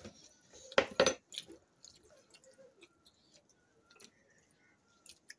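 Close-up eating sounds of rice eaten by hand from a metal plate: soft squishing of rice and chewing, with two louder sharp sounds about a second in and scattered faint clicks after.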